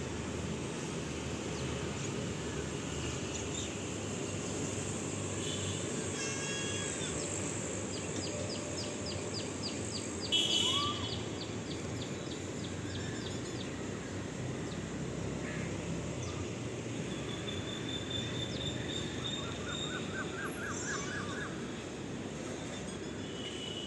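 Outdoor ambience: a steady low rumble with birds chirping and trilling over it, and a brief louder sound about ten seconds in.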